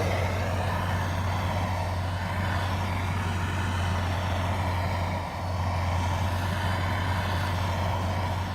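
Dodge Ram Power Wagon pickup's engine running steadily, a deep even hum with a brief dip about five seconds in.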